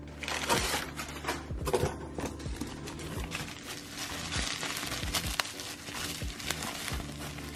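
Plastic bubble wrap and packing paper crinkling and rustling as hands unwrap a small bundle, a run of irregular crackles.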